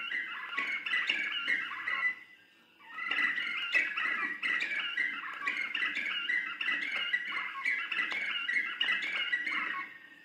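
A group of black-fronted nunbirds (bicos-de-brasa) calling together in a dense, chattering chorus. The chorus breaks off briefly about two seconds in, then starts up again.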